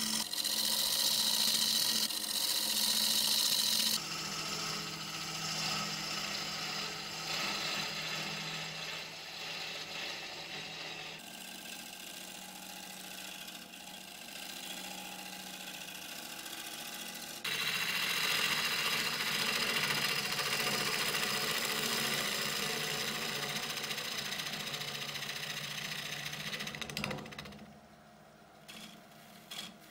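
Omega Stubby 750 wood lathe running while a gouge cuts the inside of a spinning willow-and-resin bowl: a steady hum with the hiss and scrape of the tool on the wood. The sound changes abruptly several times, and near the end it drops much quieter.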